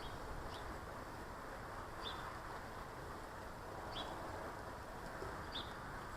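A garden bird repeating a short, high call four times, about every two seconds, over steady low background noise.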